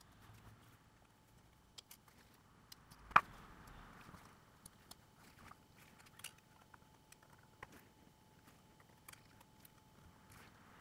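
Scattered small clicks and taps of tools and phone parts being handled during a smartphone repair, with one sharp, louder click about three seconds in.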